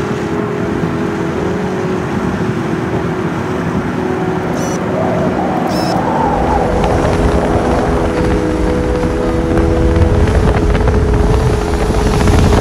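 Car driving on a highway: a steady low road and wind rumble that grows stronger near the end, with sustained background music tones over it.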